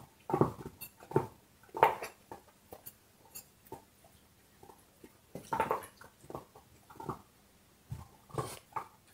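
A large dog chewing and gnawing on a bone: irregular wet crunches and clicks of teeth on bone, the heaviest crunches about two seconds in and again around six seconds, with a sparser, quieter stretch in between.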